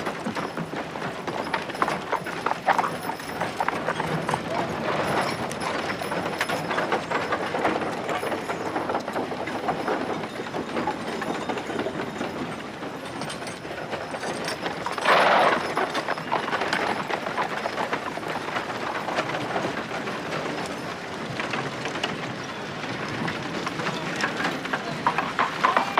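Old-west street ambience: horses' hooves clip-clopping and horse-drawn carriages rolling by in a steady, busy stream of knocks and rattles, with one brief louder burst about halfway through.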